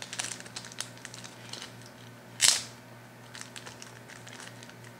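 A thin clear plastic packet crinkling and crackling in the fingers as it is worked open. There is one louder, sharper crinkle about halfway through.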